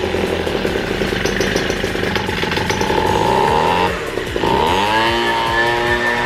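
A handheld gas-powered leaf blower's two-stroke engine runs at high throttle. About four seconds in it drops briefly, then revs back up to a steady high pitch.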